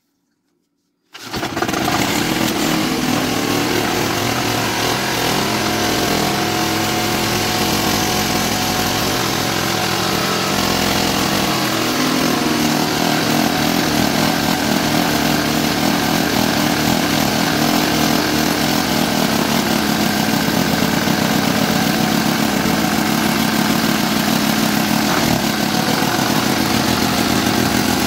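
Single-cylinder diesel engine of a two-wheel walking tractor, starting abruptly about a second in and then running steadily with a fast, even knock.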